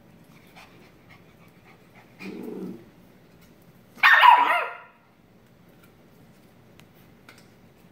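Shiba Inu giving a single sharp play bark that slides down in pitch about four seconds in, the loudest sound here, after a short low growl about two seconds in. Faint clicks of claws on the hard floor.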